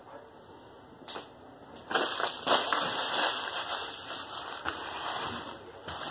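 Brown paper crinkling and rustling as it is handled and wrapped around plant pots, loudest from about two seconds in.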